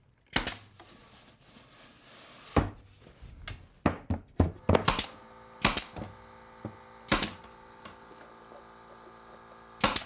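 Pneumatic brad nailer firing brads into wood, about eight sharp shots at irregular intervals, each with a short puff of air.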